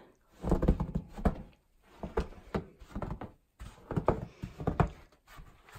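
Footsteps on a snow-dusted wooden deck: three bouts of knocks and thuds with short pauses between.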